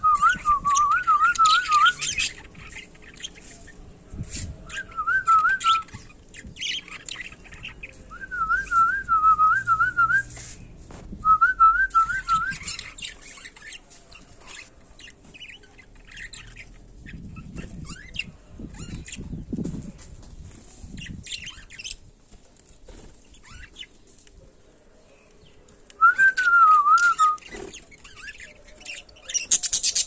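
A person's warbling, trilling whistle, sounded in five short bird-like bursts, with budgerigars chirping and chattering throughout. A flurry of wingbeats comes at the very end.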